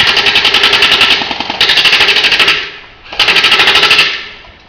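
Airsoft electric gun firing full-auto: three bursts of rapid, evenly spaced shots, each about a second long, with short pauses between them.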